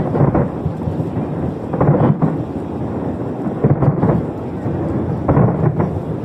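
Aerial fireworks going off in a steady barrage, with deep booms about every two seconds over a continuous rumble.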